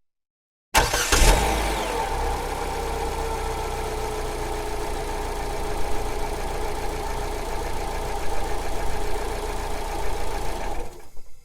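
Car engine starting: it catches abruptly about a second in with a brief flare of revs, settles to a steady idle, and is switched off near the end, dying away quickly.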